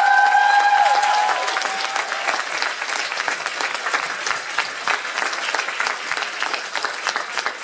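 Audience clapping, with a few held cheers in the first two seconds; the applause thins out and fades gradually.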